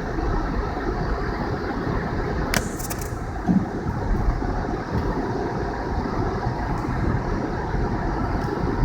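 Car driving on a snow-covered road: a steady low rumble of engine and tyres, with a few brief clicks about two and a half seconds in.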